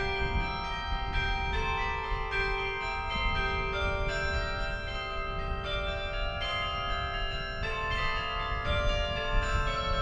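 Carillon playing a melody: tuned tower bells struck one note after another, each ringing on and overlapping the next, over a low background rumble.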